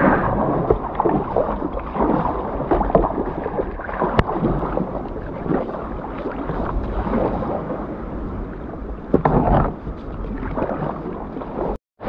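Flowing river water with irregular splashing and sloshing, uneven and continuous, as someone wades upstream through it.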